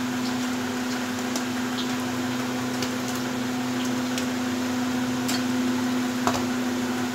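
A steady mechanical hum on one pitch, like a running appliance or fan, with a few faint clicks scattered through it.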